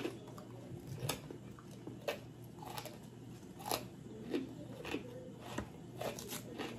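Crisp fortune cookie crunching as pieces are bitten and broken off, a short sharp crack roughly every half second to second.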